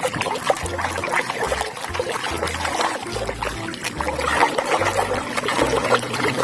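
Water trickling and splashing as a muddy toy is rinsed and washed, with small knocks and splashes of handling.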